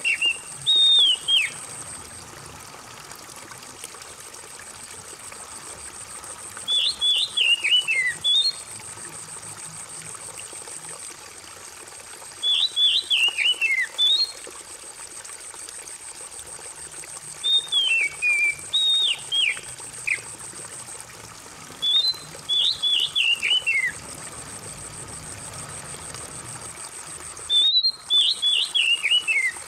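Oriental magpie-robin song in short phrases of quick whistled notes that fall in pitch, one phrase about every five seconds, over a steady trickle of running water.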